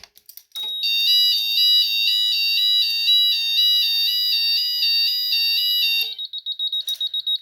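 JSB electronic fire alarm sounders going off with a fast alternating two-tone sound, which stops about six seconds in. A fast, high-pitched pulsing beep then takes over.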